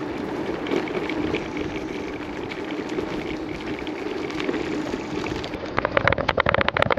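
Bicycle being ridden: steady rumble of tyres and wind, then about a second and a half of rapid clicking near the end.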